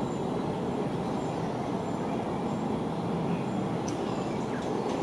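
Steady low rumble of background noise, with a few faint short high chirps.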